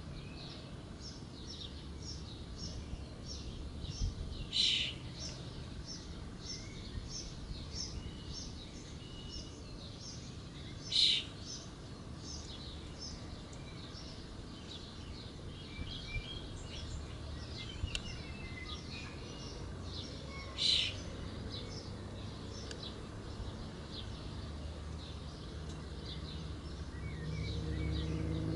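Birds chirping: a short high chirp repeated about two to three times a second throughout, with a louder call breaking in three times, over a steady low rumble. A vehicle engine hum grows louder near the end.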